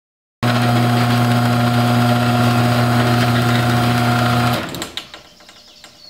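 Chain-drive garage door opener running: a steady low motor hum with mechanical chain noise, starting about half a second in and stopping shortly before the end, followed by a few faint clicks.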